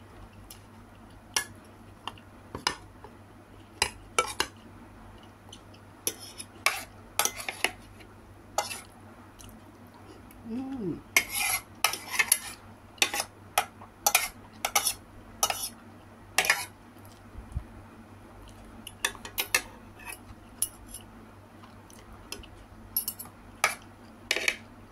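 Stainless steel fork and spoon clinking and scraping against a ceramic plate in irregular sharp clicks, busiest around the middle and again near the end.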